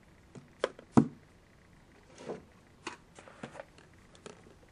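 Small hard objects being handled and set down on a tabletop: a few irregular clicks and knocks, the loudest about a second in.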